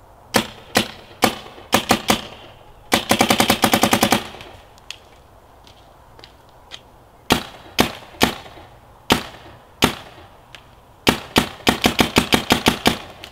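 Dye M3+ electronic paintball marker firing: single shots a few tenths of a second apart, with two rapid strings of about ten shots a second, one around three seconds in and one near the end. It is shooting hot, at around 400 fps, which is put down to the cold and an untested regulator adjustment.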